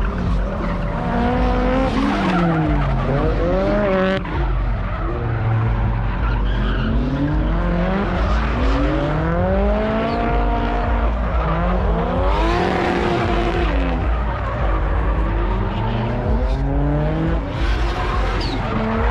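Drift cars' engines revving up and down, several rising and falling engine notes overlapping, with tyres skidding.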